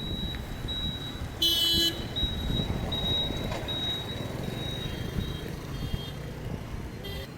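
Street traffic rumble with a short, shrill vehicle horn toot about a second and a half in, and another brief toot near the end.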